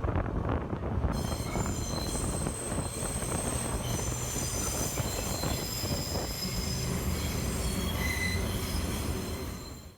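Vintage IRT Low-Voltage subway train running with a low rumble, its wheels squealing in several high, steady tones from about a second in.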